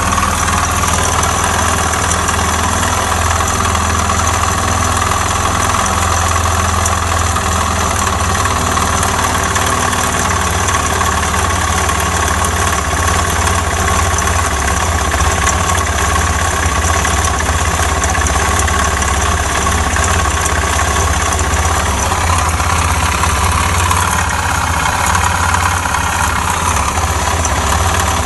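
Suzuki Djebel 250's single-cylinder four-stroke engine idling steadily, the engine whose knock is being tracked down.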